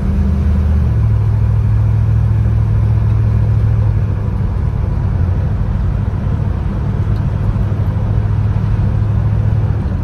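1954 Chevrolet's engine and road noise heard from inside the cabin while driving: a steady low rumble whose engine tone shifts about a second in, then holds steady.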